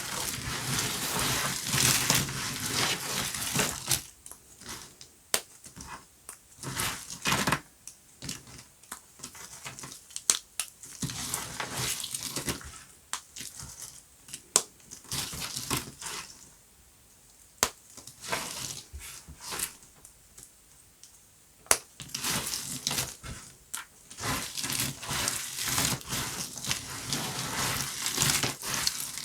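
Dry, crunchy soap being cut and crumbled: dense crackling with sharp snaps as pieces break off. The crackling comes in spells, with a quieter stretch in the middle, and it returns thickly near the end.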